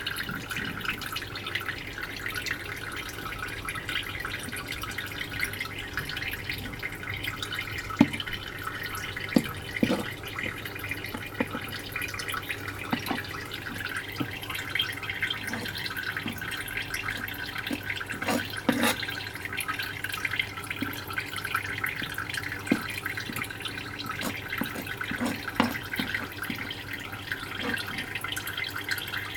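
Water running and dripping steadily, with scattered light knocks of a knife on a plastic cutting board.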